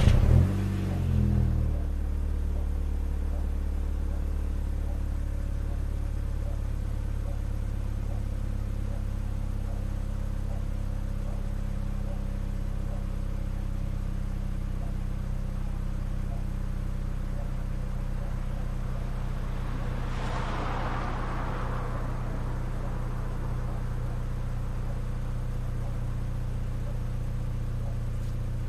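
VW Golf GTI engine on its stock exhaust starting up: the revs flare and then drop over the first second or two, settling into a steady idle. A brief rushing noise passes over it about twenty seconds in.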